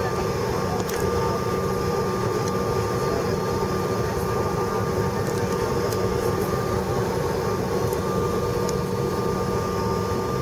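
Jet airliner cabin noise while taxiing: the engines at idle give a steady hum with a steady whine over it.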